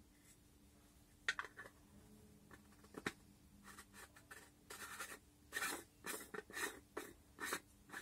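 Clear plastic housing of a submersible LED puck light handled in gloved hands: a sharp click a little over a second in, another about three seconds in, then a run of short scraping rubs.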